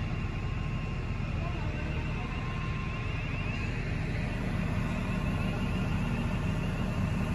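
Steady low rumble of diesel construction machinery running on a building site, with a faint high chatter for a couple of seconds midway.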